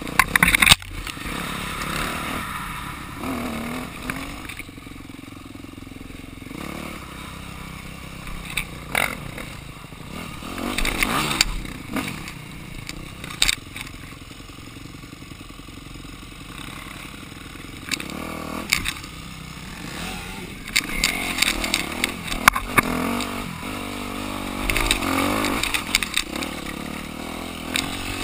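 Dirt bike engine revving up and falling back again and again as it rides a rough trail, with short knocks and clatter from the bike over bumps.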